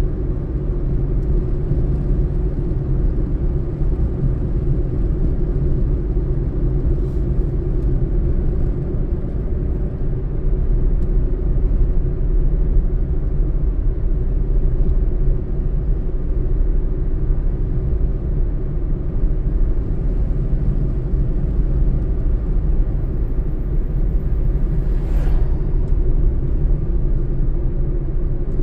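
Car being driven: a steady low rumble of engine and road noise that holds an even level throughout.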